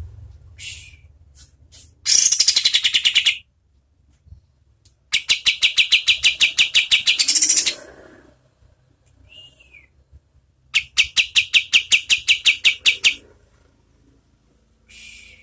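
Kapas tembak songbird singing three loud bursts of rapid staccato notes, at about eight notes a second, each burst lasting about two seconds. Short, fainter calls come between the bursts.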